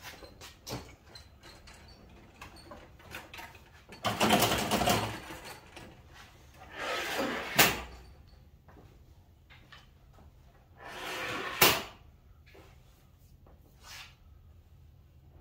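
Wooden fold-out wings and supports of a miter saw station being slid and set into place: three scraping slides about a second each, the second and third ending in a sharp knock as the part seats, with a few light taps in between.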